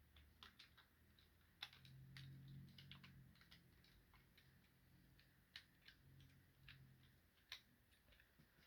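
Faint, irregular clicks and taps of hard plastic Transformers figure and upgrade-kit parts being handled and pushed together as tabs are worked into their holes.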